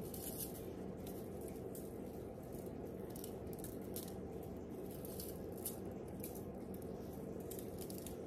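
Grated parmesan cheese being shaken from a shaker onto slices of bread: a soft, faint rattle and patter of grains, over a steady low hum.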